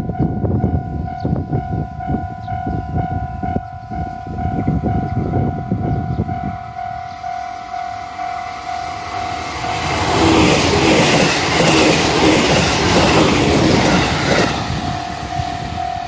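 A 313 series electric train passes a Japanese level crossing. The crossing's warning bell rings on a steady high tone while the wheels clack over rail joints. From about ten to fourteen seconds in, a loud rush of train noise covers everything, and the bell comes through again near the end.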